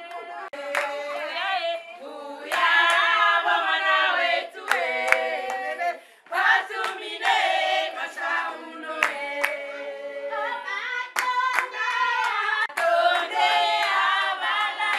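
A group of women singing together unaccompanied, the voices overlapping on held notes, with sharp hand claps at irregular moments.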